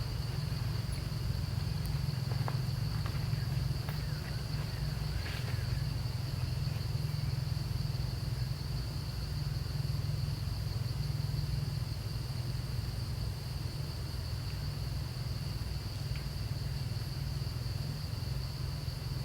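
Steady outdoor ambience: a constant high insect drone over a low rumble, with a few faint clicks in the first few seconds.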